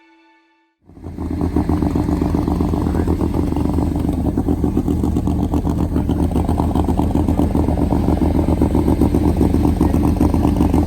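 A loud engine running steadily with a fast, rough pulsing, cutting in abruptly about a second in as music ends.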